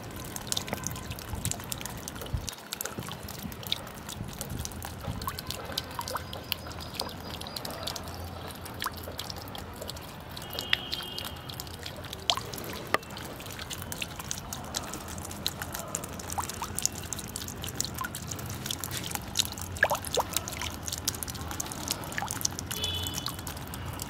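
Water jets from a small solar-powered floating fountain pump falling back into a tub of water: a steady splashing of many small droplets.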